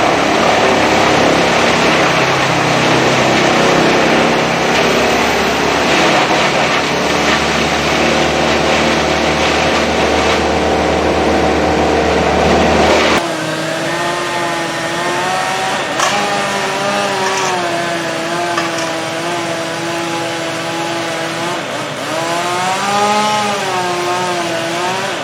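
A loud engine runs steadily for about 13 s, then the sound changes abruptly to a chainsaw running, its pitch rising and falling as it is worked through wood.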